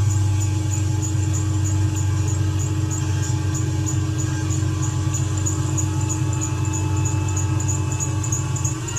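Failing secondary air injection pump on a 2012 Mercedes-Benz C300 running with a steady droning hum over the idling engine, with a faint regular high ticking. It is the noise of a pump that is going bad.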